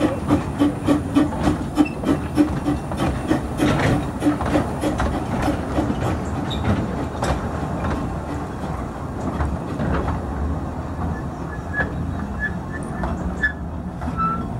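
Narrow-gauge steam locomotive, a Kerr Stuart 'Tattoo' class 0-4-2 saddle tank replica, working past with an even chuff of about three beats a second that fades over the first few seconds. Its coaches then roll by, wheels clicking over the rail joints.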